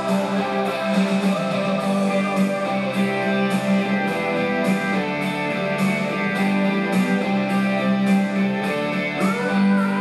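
Music with a guitar playing.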